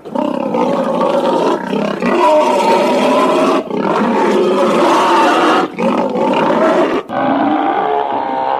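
Monster roar sound effect: a run of long, loud roars broken by short pauses about three and a half, five and a half and seven seconds in. The last roar sounds duller than the others.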